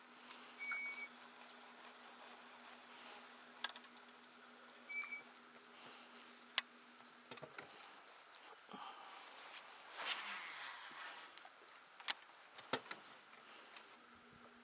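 Faint boat-fishing sounds: scattered clicks and taps from the rod and baitcasting reel as a jerkbait is worked. Under them runs the steady low hum of the electric trolling motor, which stops about halfway through and comes back near the end.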